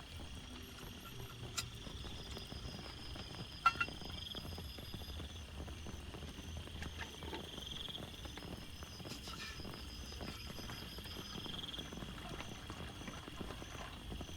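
Rain falling steadily, with irregular drops tapping sharply now and then, under a high-pitched chorus that swells and fades every three to four seconds.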